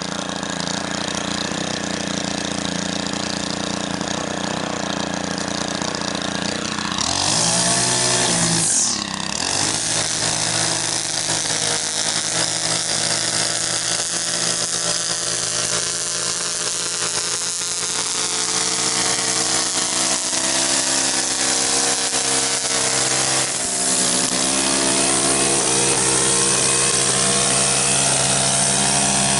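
Gas string trimmer engine running steadily, with a brief rev up and down about a quarter of the way in. It is then held at a higher, louder speed, with another short dip and rise near the end.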